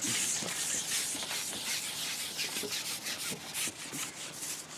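Carbon fishing pole sliding through the angler's hands as it is shipped out to plumb the depth: a dry rubbing hiss made of many short, irregular scrapes.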